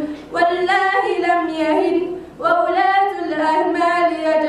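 A girl's voice chanting Qur'an recitation in the melodic tajweed style into a handheld microphone, holding long, wavering notes. It breaks off briefly twice, about a third of a second in and just after two seconds.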